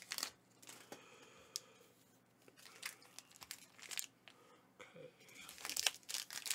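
Crinkly plastic card packaging being handled: scattered rustles and small taps that grow busier and louder near the end.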